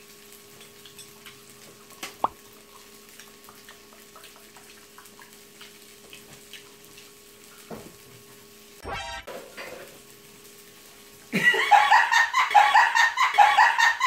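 Quiet table sounds: a faint steady hum, light clicks of chopsticks and a sip from a paper cup. About eleven seconds in, loud music cuts in.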